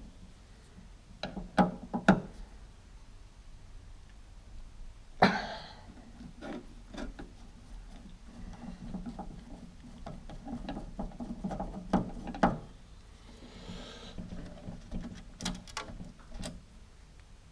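Workshop handling noise from hand tools and metal parts: sharp knocks and clinks, a louder knock with a short scrape about five seconds in, and rubbing and fiddling sounds between, as a car heater valve is worked loose.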